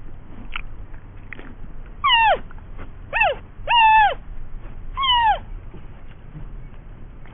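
Cat meowing: a couple of faint short calls, then four clear meows about a second apart, each dropping in pitch at the end.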